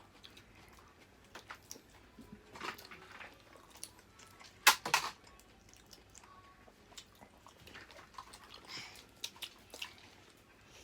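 Eating sounds at a seafood meal: scattered small crunches, clicks and chewing, with one sharp crack about four and a half seconds in and a lighter one right after.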